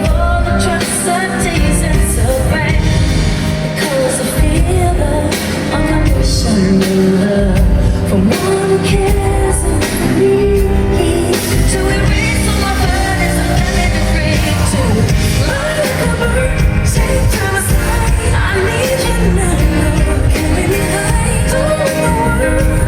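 A live pop ballad played by a band through a stadium PA: a woman sings the lead over heavy bass and drums. The sound is loud and continuous and carries the boom of a large arena.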